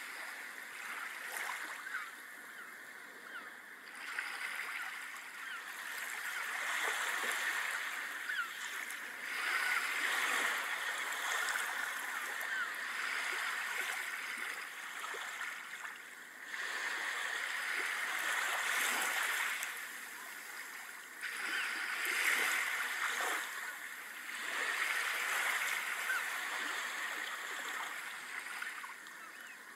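Small sea waves breaking and washing up a sandy beach, the surf hiss swelling and fading every few seconds.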